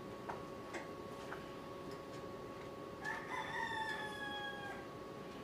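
A rooster crowing once, a single long call about three seconds in. A few light clicks come before it, and a faint steady hum runs under it.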